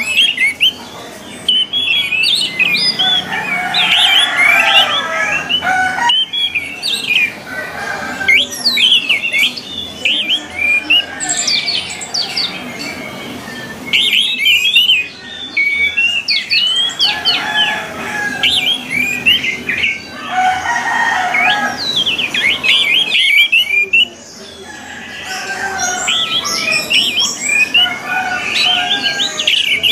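Orange-headed thrush song: dense, rapid runs of varied whistled and chirped phrases, broken by brief pauses every few seconds.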